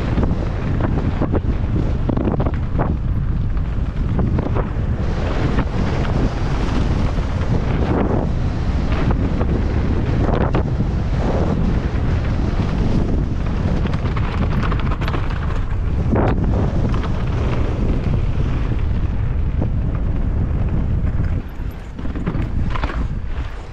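Wind rushing over the microphone of a mountain bike at speed on a downhill run, with repeated knocks and rattles from the bike over rough ground. The rushing drops away a little before the end.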